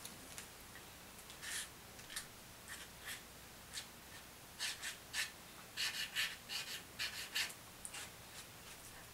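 Soft scratchy strokes of a squeezed ketchup packet rubbing and dragging across a sheet of paper, a few scattered strokes at first, then a quicker run of them in the middle.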